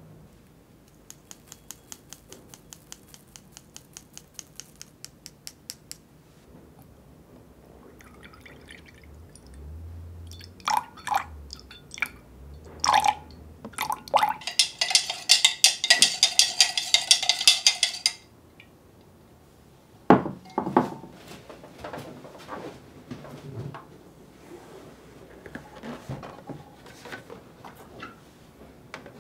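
Kitchen preparation sounds: a run of quick, regular light ticks, a few knocks, then milk poured into a glass measuring jug for about four seconds around the middle, and a sharp knock after it.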